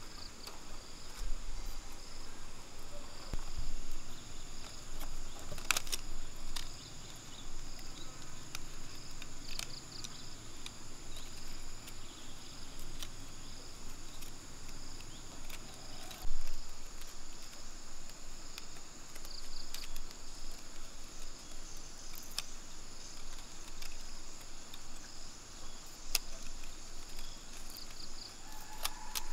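Steady insect chorus of crickets, with occasional light clicks and a few soft low knocks as thin bamboo strips are handled and woven by hand.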